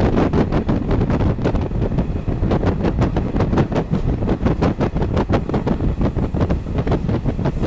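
Passenger train running on the Ofoten Line, heard from inside the carriage: a steady low rumble from the wheels on the track, with fast, uneven clicking throughout.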